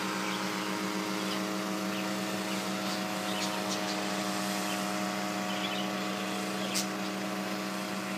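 Remote-controlled crop-spraying helicopter running steadily, its engine and rotor giving a constant hum with a strong low tone. A few faint short clicks come in around the middle and near the end.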